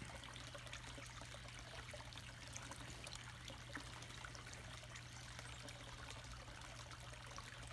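Faint, steady trickle of water running into a garden pond, over a low steady hum.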